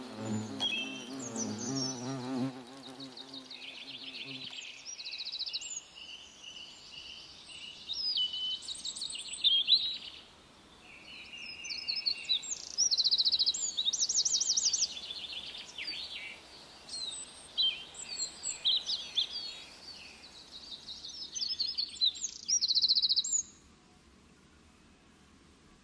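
Songbirds singing, a stream of varied quick trills and whistled phrases, which stops about two seconds before the end. A flying insect buzzes close by for the first four seconds or so.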